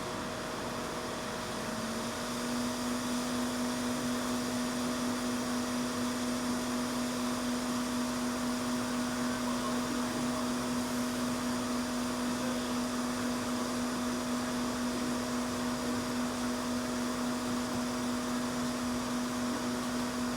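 Hot-air rework gun blowing steadily with a constant hum while reflowing solder paste through a BGA stencil into solder balls on a chip. The blowing gets a little louder about two seconds in.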